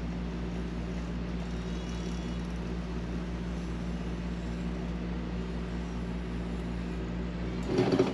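RV rooftop air conditioner running with a steady low hum. Near the end there is a brief louder burst as the second air conditioner tries to start, and then the low hum cuts off: the start-up surge overloaded the generator supply and the surge protector shut the power off.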